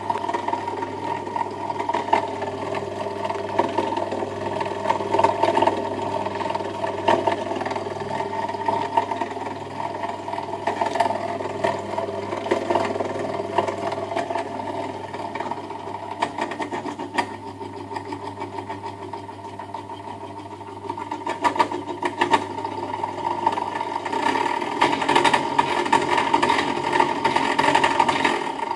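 Stuart Scientific STR9 3D rocking platform running: a steady motor hum with a busy rattling clatter of small clicks from the mechanism. The sound eases off and then swells again as the speed knob is turned down and back up.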